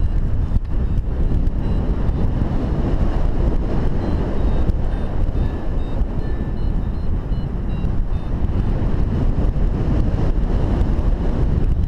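Steady, heavy wind rush over the microphone of a camera on a paraglider in flight. Faint short electronic beeps from the flight variometer come and go, mostly in the middle.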